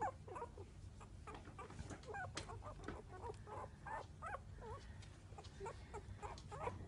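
A litter of 12-day-old cockapoo puppies squeaking and whimpering: a steady stream of short, high calls, several a second, often overlapping.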